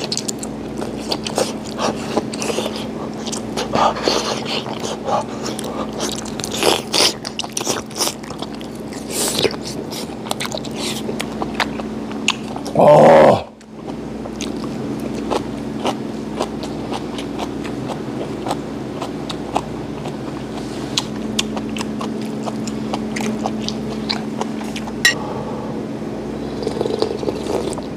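Close-up mouth sounds of a person eating ramen with webfoot octopus: chewing, smacking and slurping, with many short wet clicks. About halfway through comes one brief, loud voice-like sound, and near the end the broth is slurped from the bowl.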